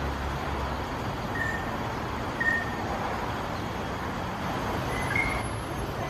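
Greater racket-tailed drongo giving a few short, clear whistled notes, two of them close together near the end, over a steady hum of traffic.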